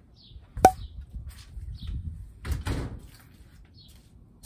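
A glass storm door opening: a sharp latch click with a brief metallic ring about half a second in, then a scraping rustle of the door and steps around the middle. Faint bird chirps in the background.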